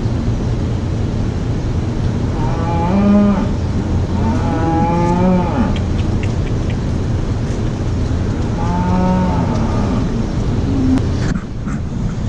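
Freshly weaned calves bawling, three long drawn-out calls over a steady low hum; they are calling because they were just taken off milk.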